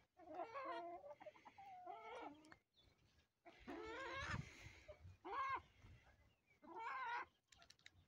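A series of about five drawn-out, wavering animal calls, each lasting under a second, with short pauses between them.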